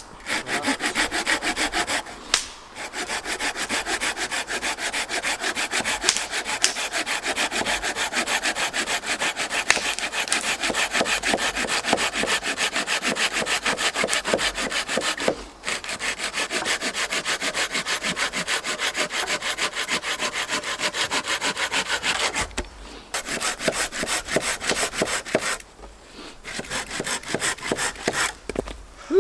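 Hand saw cutting through branch wood for firewood, with fast, even back-and-forth strokes in long runs and a few short pauses.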